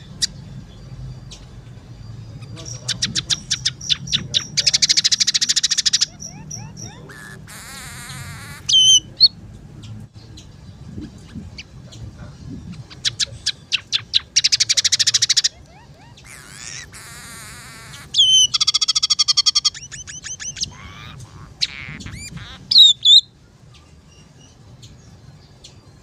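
Scaly-breasted munia singing: twice, a run of clicks speeds up into a fast buzzy trill, followed by sharp high whistled notes, with the loudest whistle near the end.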